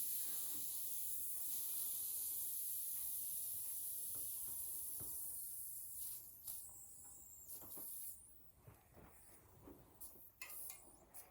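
Air hissing out of a bicycle inner tube's valve as the tube is deflated, the hiss fading away about six seconds in. After that, a few faint clicks and knocks of the wheel being handled.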